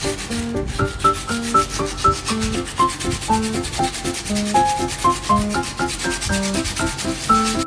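A cast resin piece being rubbed back and forth on wet-and-dry sandpaper, a steady gritty scraping as its surface is sanded smooth. A light keyboard melody plays as background music throughout. The sanding stops abruptly at the very end.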